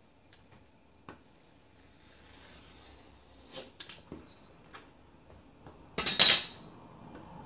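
Metal tools clicking and scraping on a work table as laminated croissant dough is trimmed along a metal ruler. There are a few light clicks, then a loud, brief clatter about six seconds in as the ruler is lifted away.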